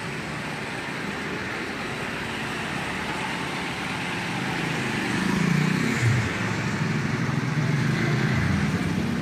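Highway traffic passing. A heavy truck's engine rumbles by and grows louder about halfway through.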